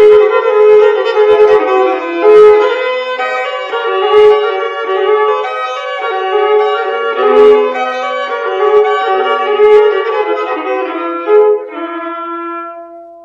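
Instrumental background music: a lively melody with a few low knocks beneath it, closing on held notes that fade out near the end.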